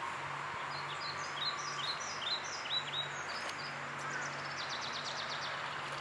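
Outdoor ambience with a songbird calling: a run of short, quick chirps at about three a second, then a fast trill. A faint steady low hum runs underneath.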